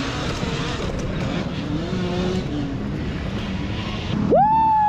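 Steady rushing noise of a dirt bike riding over rough ground. About four seconds in, the 72 V Talaria Sting electric dirt bike's motor gives a loud whine that shoots up in pitch and holds high as the bike accelerates hard.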